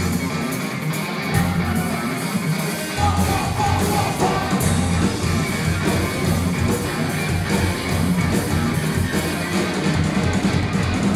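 Live rock band playing through the PA: electric guitar, bass guitar and drums. The bass and drums fill in heavily about three seconds in.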